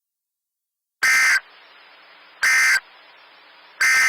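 Emergency Alert System end-of-message signal: three short bursts of SAME digital data tones about a second and a half apart, with faint hiss and a low hum between them.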